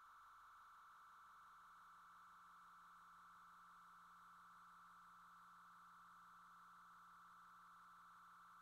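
A faint, steady electronic tone at a single high pitch, with a fainter low hum beneath it. It cuts off suddenly at the end.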